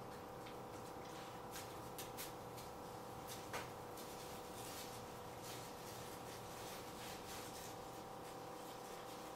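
Faint, scattered clicks and rustles of a dog rummaging through garbage on a tile floor, over a steady hum.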